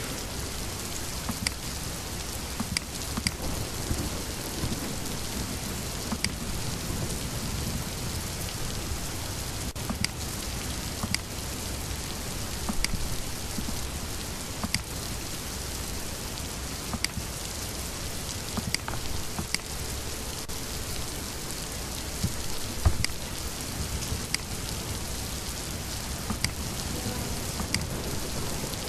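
Steady hiss from an open computer microphone, with scattered sharp clicks of a mouse and keyboard about every second or two and one louder knock about three-quarters of the way through.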